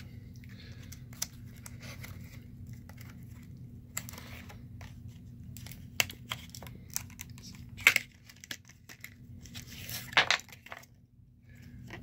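Clear plastic blister package of a Hornady shell holder being crinkled and pried open, with scattered crackles and a few sharp clicks, the loudest about eight seconds in.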